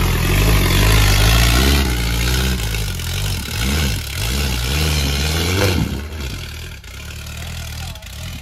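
Off-road buggy's engine revving hard and unevenly under load as it climbs a steep dirt slope, with its wheels spinning and throwing dirt. The engine grows quieter after about six seconds as the buggy pulls away up the hill.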